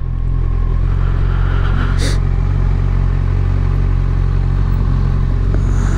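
Motorcycle engine running steadily at low, even revs, with a brief hiss about two seconds in.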